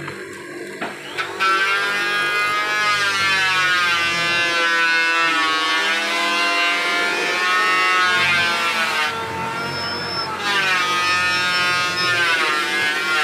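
Hollow-chisel mortising machine cutting into a wooden beam. Its motor and auger whine sags in pitch as the chisel is levered into the wood and climbs back as it is lifted, several times over, growing loud about a second in.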